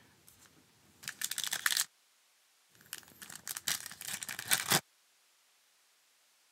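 Foil wrapper of a Panini Prizm football card pack being torn open and crinkled by hand: two bursts of crackly tearing, the second about two seconds long.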